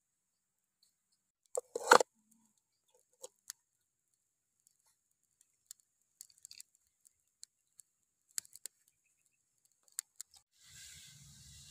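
Wood fire crackling with scattered sharp pops and ticks under a clay pan of raw goose pieces. A louder knock and scrape comes about two seconds in as the pan and meat are handled, and a faint steady hiss sets in near the end.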